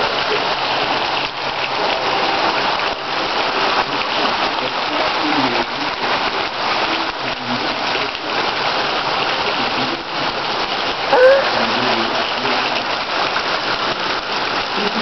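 Heavy rain pouring steadily onto a flooded street and the plants around it, a dense even hiss of drops on water and ground. About eleven seconds in, a brief rising tone sounds above the rain.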